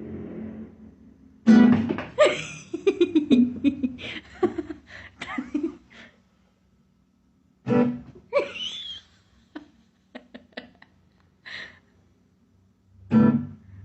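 Bursts of laughter with plucked guitar music, the laughing loudest and most rapid in the first few seconds, then returning in shorter outbursts.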